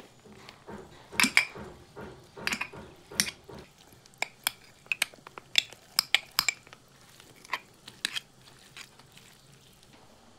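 Metal cutlery clinking against dishes, a run of irregular sharp clinks, some ringing briefly, that thins out near the end.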